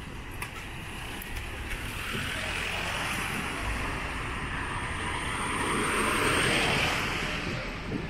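A passing vehicle: a broad rushing noise that swells over several seconds, peaks and fades near the end, with a faint high whine over it.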